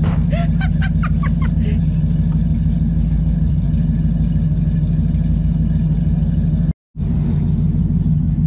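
1956 Chevrolet 150's engine idling steadily. The sound cuts out completely for a moment about seven seconds in.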